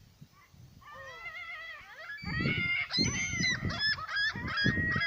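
Birds calling: a few pitched calls about a second in, growing into a loud run of short, rapidly repeated calls from about three seconds in.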